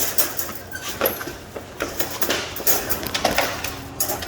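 A run of irregular clattering knocks and rattles, many sharp taps in quick succession.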